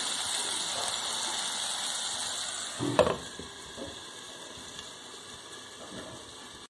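Chicken hearts frying in a pan with a steady sizzle; about three seconds in a glass lid is set down on the pan with a sharp knock, and the sizzle is quieter under the lid.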